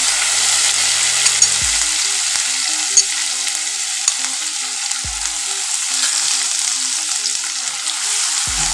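Onion, green chili, ginger and garlic paste sizzling steadily in hot mustard oil in a non-stick wok, with one sharp click about three seconds in. Near the end it is stirred with a steel spoon.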